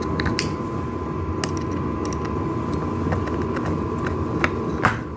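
Wooden train-table parts being fitted and fastened by hand: a continuous rough grinding scrape with scattered small clicks, like a screw or bolt being turned into the wood.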